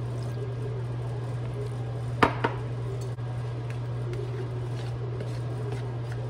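Water poured from a glass measuring cup onto corn flour (Maseca) in a plastic bowl, then a spoon stirring and scraping the wet masa in the bowl. Two sharp knocks come a little after two seconds in, over a steady low hum.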